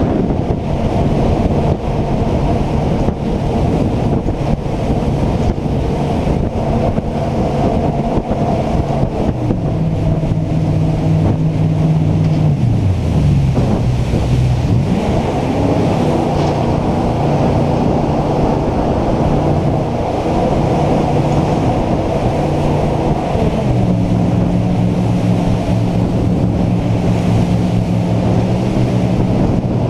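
A jet boat's engine running under way, with wind buffeting the microphone. The engine note falls a little past halfway, then climbs again and steps up once more later on.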